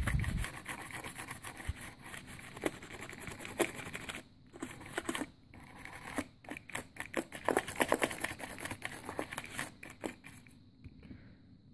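Small computer brush scrubbing over an open laptop keyboard, bristles brushing dirt out from under the removed keys. It makes rapid, irregular scratchy strokes with a few short pauses and stops near the end.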